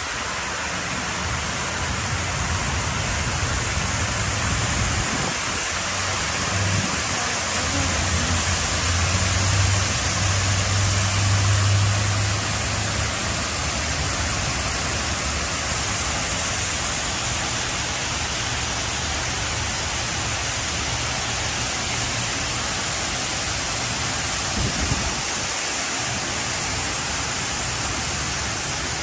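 Steady rushing of the Hines Waterwall: a sheet of water pouring down the tall grooved walls and splashing into the shallow basin below. A low rumble swells for a few seconds near the middle.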